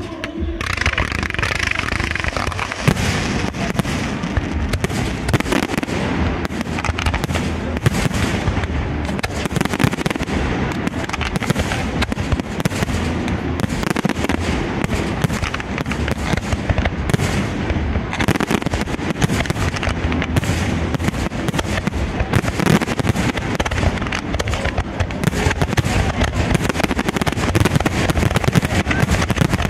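Fireworks display: a dense, continuous barrage of shell bursts, bangs and crackles following one another in quick succession. In the first couple of seconds there is a hiss from ground fountains.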